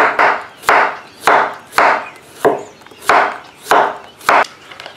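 Kitchen knife thinly slicing zucchini on a cutting board: a steady run of quick chopping strokes, about two a second, each ending in a knock on the board.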